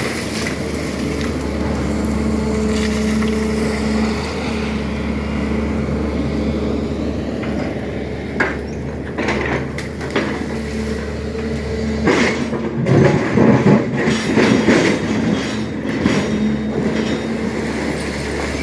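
SANY hydraulic excavator's engine running steadily while it digs. From about eight seconds in come sharp knocks, followed by a louder, busier run of knocking and scraping from metal working against earth and stone.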